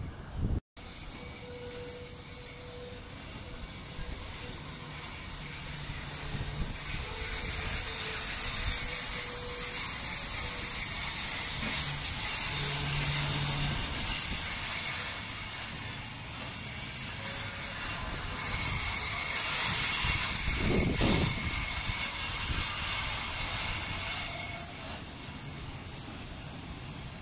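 Open freight wagons of a shunting train rolling slowly past, with a steady high-pitched squeal from the wheels over the rumble of the running gear. It grows louder over the first ten seconds or so, then holds steady.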